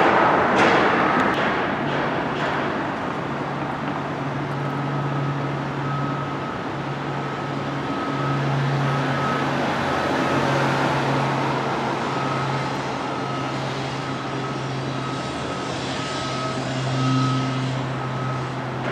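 A motor vehicle's engine running steadily, with a short high beep repeating about every two-thirds of a second from about four seconds in.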